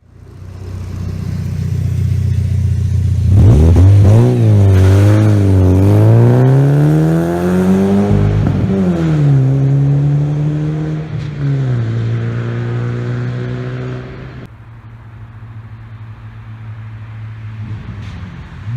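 SEAT Cordoba SX's 1.6-litre AFT four-cylinder petrol engine heard through its exhaust. It idles, then is revved up and down several times, with one long rise in pitch about 6 to 8 seconds in, and settles at a steady higher speed. About 14 seconds in the sound drops suddenly to a quieter steady idle.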